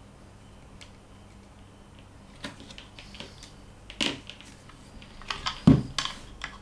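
Handling sounds of the Saramonic UwMic9 wireless kit's transmitter and lavalier mic: scattered sharp clicks and knocks. It is nearly quiet for the first two seconds or so, then the clicks start, with one loud click about four seconds in and the loudest thumps near the end.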